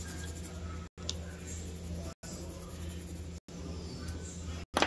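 Coloured pencil scratching softly on paper as a drawing is shaded in, over a steady low hum. The sound cuts out for an instant about every second and a quarter, and a sharp click comes near the end.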